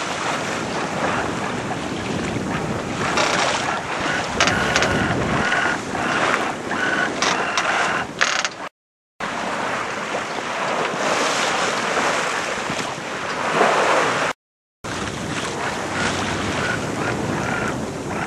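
Wind buffeting the microphone over the rush of waves and water along the hull of a sailing yacht under sail, with no engine running. The sound drops out briefly twice, about 9 and 14 seconds in.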